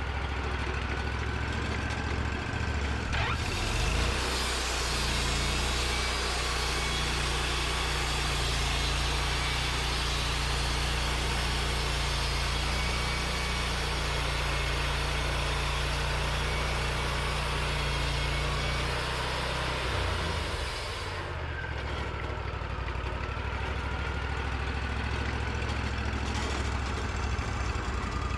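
Portable sawmill's engine running steadily. About three seconds in, the saw enters a white pine log and a hiss of cutting rises over the engine's lower, working note for about eighteen seconds, then stops as the cut ends and the engine runs on.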